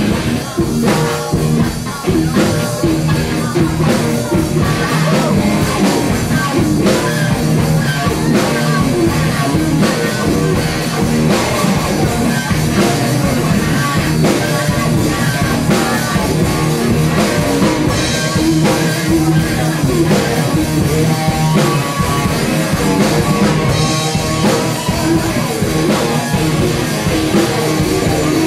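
Rock band playing a song, with electric guitar and drum kit.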